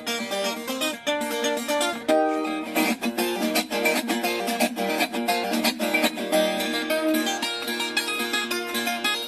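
Viola caipira, the Brazilian ten-string guitar with paired steel strings, played solo: a steady stream of plucked notes in a sertaneja style.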